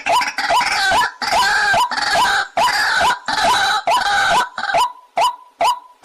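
White-breasted waterhen calling: a dense run of harsh, croaking calls laid over a repeated hooked note, giving way near the end to the repeated note alone at a little over two a second.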